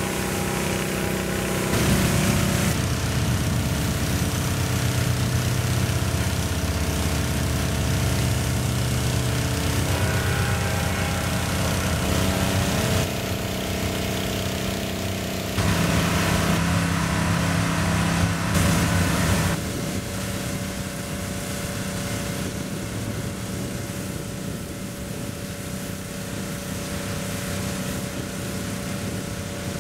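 Small gasoline engine of a pressure washer running steadily, with the hiss of its high-pressure water spray hitting the riveted steel side of a locomotive tender. The sound shifts abruptly in level a few times.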